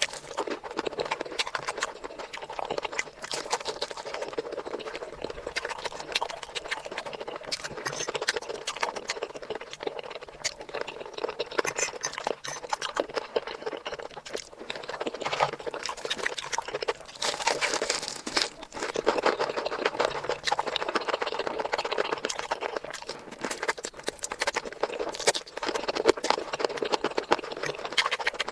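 Close-miked eating sounds: wet chewing and lip smacking with many rapid small clicks and crunches.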